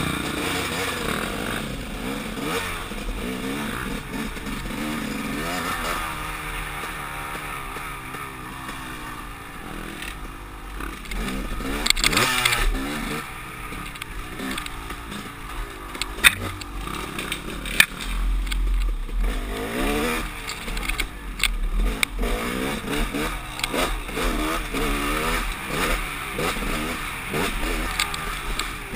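KTM 300 XC-W two-stroke dirt bike engine revving up and down as the bike rides a rough woods trail. The pitch rises and falls constantly with the throttle, and a few sharp knocks and clatter from the bike come through over rough ground.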